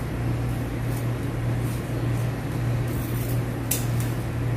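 Steady low electrical hum, with a brief rustle and then a single scissors snip through the satin ribbon near the end.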